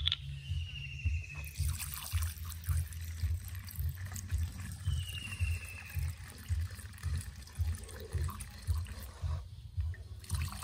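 Premixed two-stroke fuel pouring from a bottle through a plastic funnel into a chainsaw's fuel tank: a steady trickle that starts about a second and a half in and stops shortly before the end. A short falling whistle sounds twice, and low thumps come about twice a second underneath.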